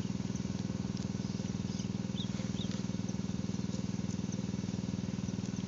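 A steady low droning hum with a rapid even pulsing, and a few faint short high chirps over it.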